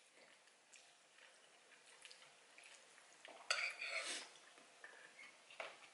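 Metal spoon scraping and clinking against a ceramic bowl as pasta is stirred and scooped, with a burst of clatter about three and a half seconds in and another clink near the end.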